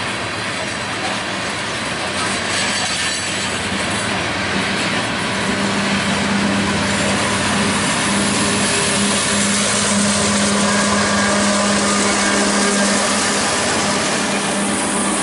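Freight train of covered hopper cars rolling past with a steady rumble of wheels on rail. From about halfway in, a Canadian Pacific diesel locomotive approaches and passes, adding a steady engine hum that grows louder.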